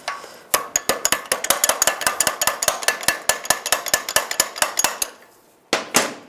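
Hammer rapidly tapping a new steel hinge pin and bushing down into a door hinge held in a vise, a fast run of light metallic taps at about nine a second. The taps stop about 5 s in, followed by a couple of louder single strikes near the end.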